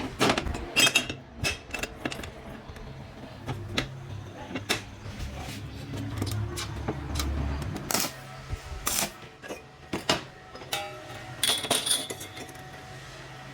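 Steel parts and a welding clamp being handled and set: a dozen or so sharp metallic clicks and clanks, scattered irregularly, over a steady low background.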